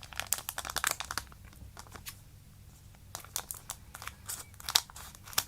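A Duel Masters booster pack's plastic wrapper being crinkled and torn open, in two spells of crackling with a lull between them and the sharpest crackle near the end.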